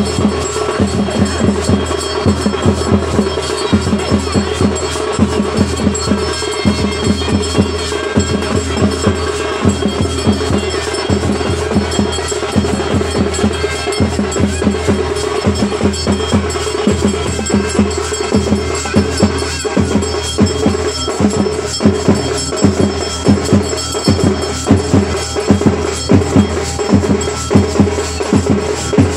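Festival drum music with a fast, steady beat over a held tone.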